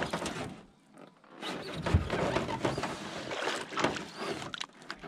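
Knocking and rustling from movement in a small jon boat, with one sharp knock about two seconds in.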